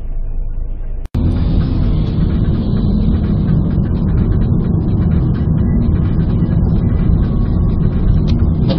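Steady engine and road noise from a moving car, as picked up by a dashcam inside the cabin. The sound cuts out for an instant about a second in and then comes back louder.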